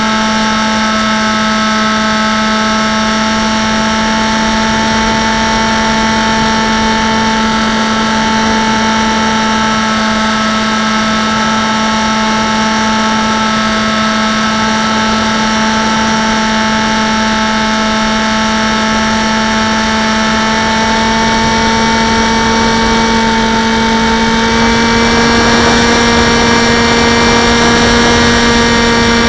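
Electric motor and propeller of a Dynam Hawk Sky RC plane whining steadily in flight, heard from a camera mounted on the plane, over a rush of wind. Near the end the whine grows a little louder and higher.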